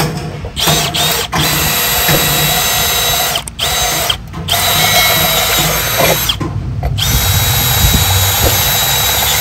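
Milwaukee M12 brushless cordless drill boring a twist bit into a steel plate: a steady motor whine that stops briefly three times as the trigger is let off, then runs on again.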